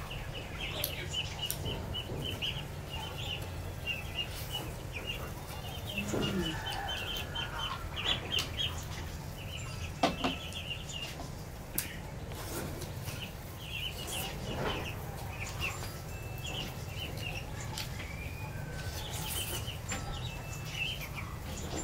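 Birds chirping in rapid trains of short high notes throughout, with a few lower calls and several sharp clicks.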